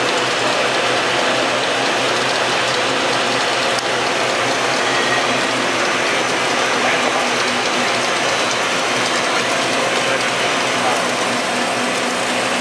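1988 Waldrich Coburg 17-10FP250 universal machining center running: a loud, steady mechanical noise with a fine, rapid rattle.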